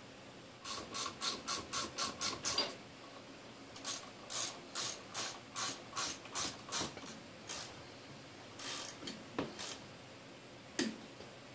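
Hand ratchet clicking while tightening bolts into a homemade aluminum valve spring vise: a quick run of about nine clicks, a pause, a slower run of about eight, then a few single clicks near the end.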